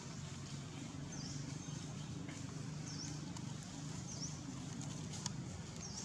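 Outdoor ambience: a short high chirp repeats four times, roughly every one to two seconds, over a low steady hum, with a couple of faint clicks about five seconds in.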